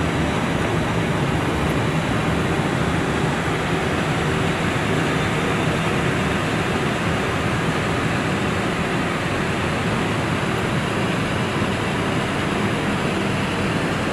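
Steady rushing cabin noise inside an Airbus A320 cockpit on the ground, from the air-conditioning airflow and the idling engines, with a faint low hum under it.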